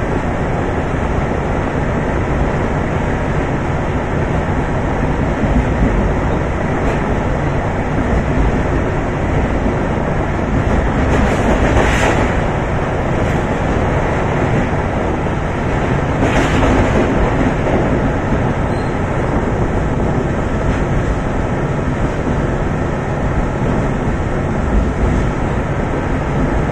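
MP36PH-3C diesel locomotive's EMD 645F3 engine running at speed, heard from the car behind, under a steady rumble of wheels on rails and wind noise. About eleven and again about sixteen seconds in, a brief rushing swell rises as the train runs through a steel truss span of the bridge.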